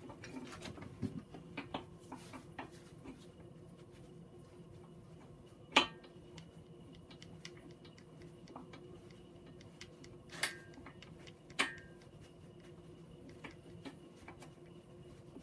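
Metal clinks and clanks from an engine stand's locking pin and mounting hardware as the pin is worked loose under the weight of the engine block: light clicks in the first few seconds, then three sharp ringing clanks, the loudest about six seconds in and two more close together past the ten-second mark.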